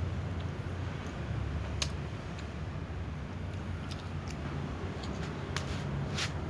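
Steady low background rumble of outdoor ambience, with a few short sharp clicks, one about two seconds in and several more in the last few seconds.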